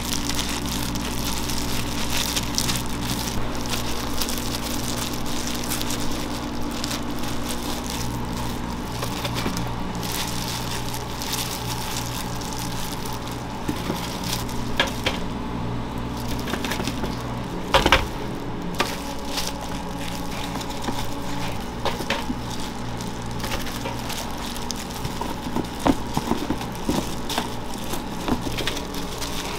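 Kitchen work noise over a steady machine hum: scattered clicks, crackling and crunching from handling food and utensils, with one louder knock about 18 seconds in.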